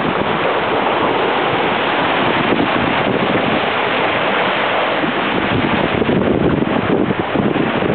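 Wind buffeting the microphone over water rushing along the hull of a Mini 6.50 sailboat under sail: a loud, steady rush without a break.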